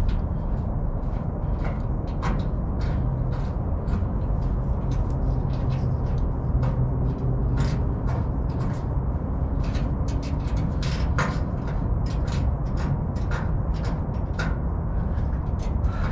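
Scattered light clicks and knocks of metal hardware being handled and hand-tightened, as the fuel transfer tank's mounting bolts are fastened from under the truck, over a steady low rumble.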